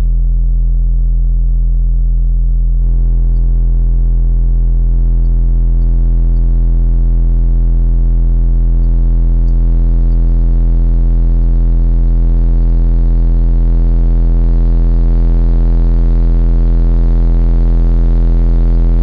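A pair of Sundown SA-Z 2500 car subwoofers, driven by a single 9510 amplifier, play a steady deep bass test tone continuously and very loudly. It picks up a harsher buzz of overtones about three seconds in, which builds toward the end as the amplifier draws more and more current.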